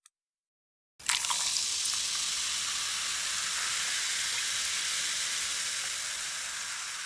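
A steady sizzling hiss that starts suddenly about a second in and fades away near the end.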